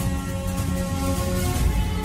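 Intro theme music: long held synth-like notes over a deep, pulsing bass.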